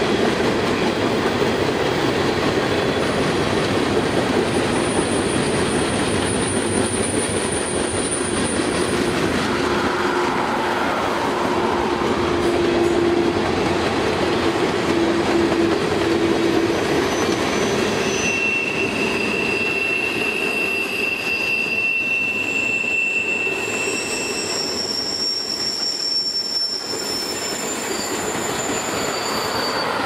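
Empty covered grain hopper cars of a freight train rolling past with a steady rumble of steel wheels on rail. High-pitched wheel squeal comes and goes in long, steady whistling tones as the wheel flanges grind through the curve.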